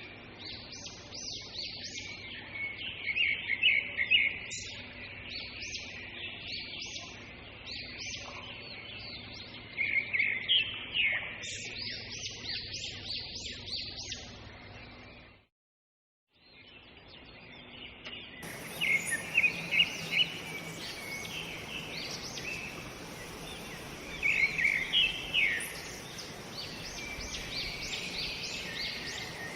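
Many birds chirping and calling in quick, short notes over a steady background hiss of outdoor ambience. The sound drops out for about a second near the middle, then a different recording of bird calls follows.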